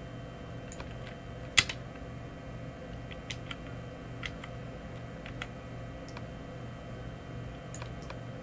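Scattered clicks of a computer mouse and keyboard, about a dozen at irregular intervals, the loudest about one and a half seconds in, over a steady low electrical hum.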